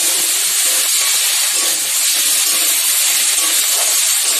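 Chopped onion, garlic and freshly added ginger sizzling steadily in hot oil in a kadai as they are stirred with a spatula.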